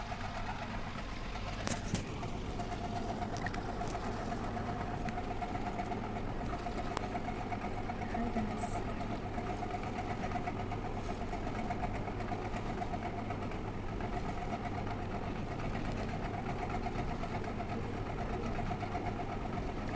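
Steady mechanical hum of a small motor running, with a thin steady tone over it.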